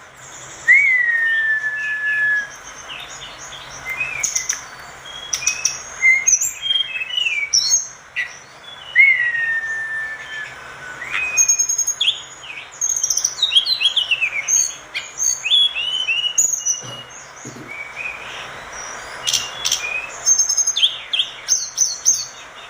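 A tledekan gunung songbird singing a long, varied song of clear whistles and quick chirps, with drawn-out slurred whistles dropping in pitch among rapid twittering phrases.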